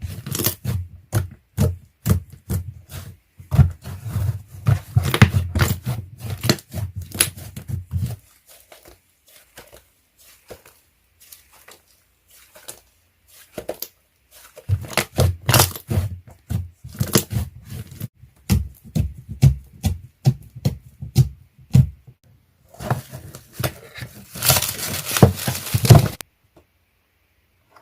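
Slime being squished, stretched and poked by hand, giving bursts of quick wet clicks and crackling pops with quieter gaps between them. The handling stops about a second before the end.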